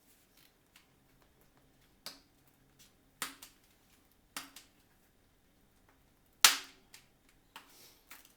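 A tyre lever prying a bicycle tyre's bead off the rim, with a sharp snap each time a section of bead springs over the rim edge: five snaps spaced a second or so apart, the loudest about six and a half seconds in.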